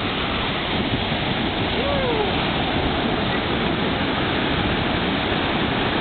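Ocean surf washing up the beach and breaking, a steady loud rush of water.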